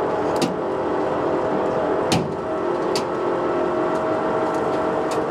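A Dodge M37 wrecker's winch and engine running steadily under load with a steady whine, pulling a Ford F250 that lies on its side back onto its wheels. A few sharp clicks or pops cut through, about half a second, two and three seconds in, and several close together near the end.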